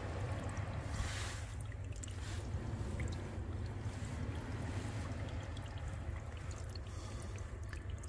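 Small spring trickling steadily out of a clay slope, with a low steady rumble underneath.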